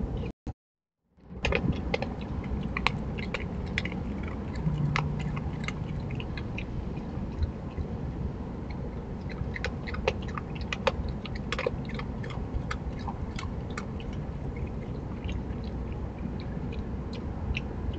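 Opossum chewing and crunching dry pet food from a dish: a run of short, sharp clicks over a steady hiss. A brief dropout about a second in, where the recording cuts between clips.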